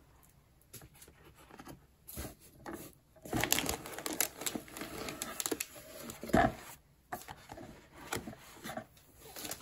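Clear plastic wrapping crinkling and rustling as a keyboard wrapped in it is handled in its cardboard box, starting about three seconds in, with one sharp knock a little past the middle.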